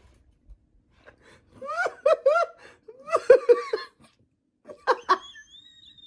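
A person laughing in short bursts of rising-and-falling 'ha-ha' syllables, three bursts in all, with a faint high squeak near the end.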